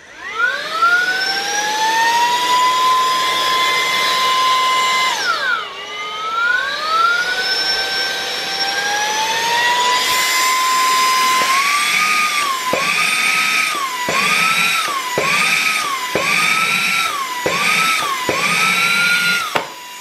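A brushless mini handheld vacuum-blower spins up to a loud, high, steady whine. About five seconds in it sags and spins back up. From about eleven seconds its pitch dips and recovers roughly once a second while its suction works against a weighted cardboard box it is trying to lift, and it cuts off near the end.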